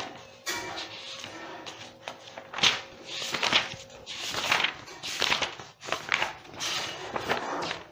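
Pen or marker scratching out handwriting in a series of quick strokes, each under half a second, with short pauses between them.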